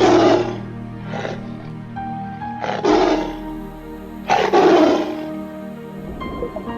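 A big cat roaring four times, a second or so apart, over steady background music.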